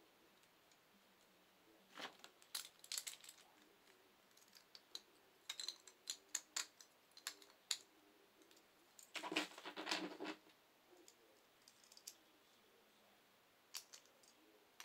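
Faint, scattered clicks and taps of small Beyblade spinning-top parts being handled and fitted together, in a few short clusters with a longer rattle of clicks about nine seconds in.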